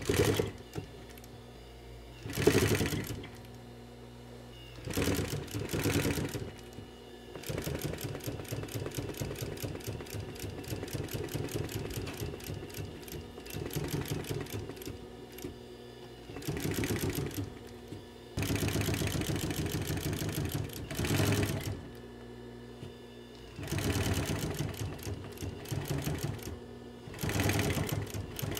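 Pfaff sewing machine stitching leather in spurts: a fast, even run of stitches that starts and stops several times, the longest run lasting about eight seconds.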